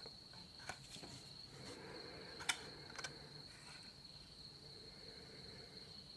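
A few faint, light clicks and taps from handling a small incense box, the clearest about two and a half seconds in, over a steady high thin tone.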